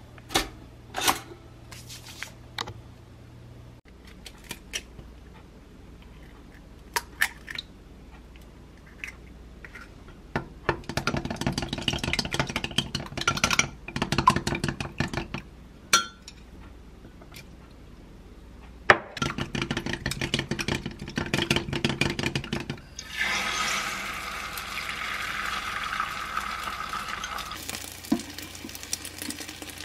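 A few sharp clicks and knocks at a pop-up toaster as a bagel goes in. Then rapid clinking of a utensil beating eggs in a glass cup, with a short pause partway. About three-quarters of the way through, the beaten egg starts to sizzle steadily in a hot rectangular omelette pan.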